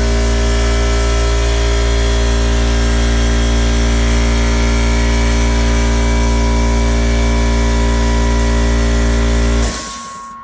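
Air compressor motor running steadily to refill the tank after the air tools have drawn it down, then shutting off and winding down just before the end.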